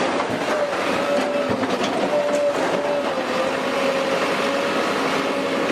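Bulldozer engine running steadily under load, with a high whine that wavers slightly in pitch and a few faint knocks.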